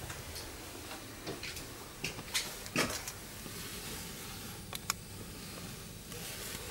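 A steady low hum and hiss, broken by a few short knocks and rustles from the camcorder being handled, most of them between about two and three seconds in and one sharp click near five seconds.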